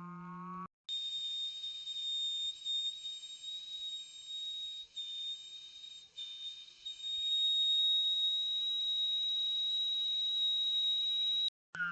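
A very high, steady human whistle held for about ten seconds at nearly one pitch, with a couple of brief dips; it starts and stops abruptly. A lower buzzing hum with gliding overtones is heard briefly just before it and again at the very end.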